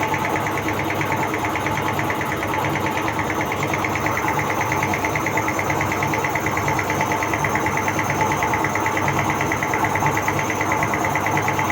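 Electric air compressor running steadily, its motor and pump giving a fast, even, unbroken rattle.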